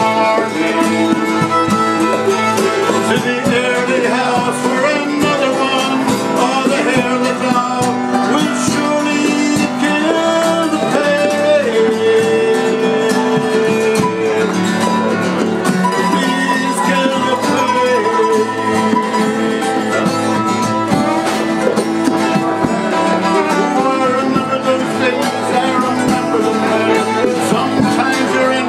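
Fiddle, mandolin and acoustic guitar playing a lively folk tune together, with no singing: an instrumental break in the song.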